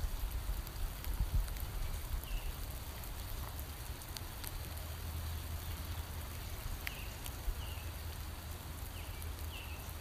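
Steady rain falling on oak leaves, with scattered individual drips. A few short, high, falling chirps come through in the second half.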